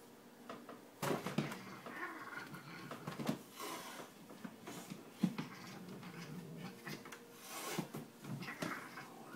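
A person and a cat play-fighting on the floor: scuffles, pats and knocks, with several short growl-like animal noises, the first about a second in.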